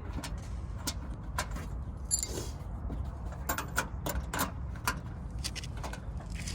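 Irregular small metallic clicks and taps of hand tools and bumper-tie hardware being handled, with a brief scrape about two seconds in, over a steady low rumble.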